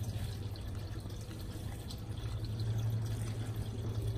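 Steady trickling water over a constant low hum.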